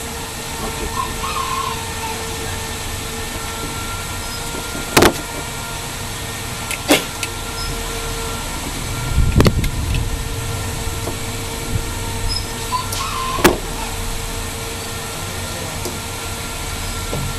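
Steady background hum with four sharp clicks a couple of seconds apart and a low thump about halfway through.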